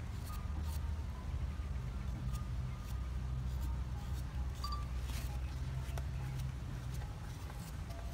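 Kitchen knife making quick small cuts into a raw carrot to shred it, giving scattered light clicks over a steady low rumble.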